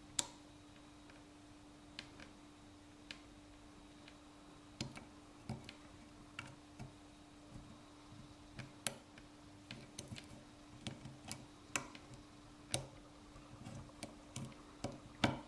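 Lock pick and tension wrench working a Yale pin-tumbler cylinder, giving scattered single clicks and ticks as the pins are lifted and set, over a faint steady hum.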